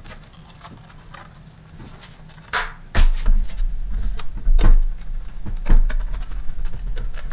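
Knocks, scrapes and thumps from an LED light bar's housing being handled on a workbench, quiet at first and then louder with a low rumble from about three seconds in.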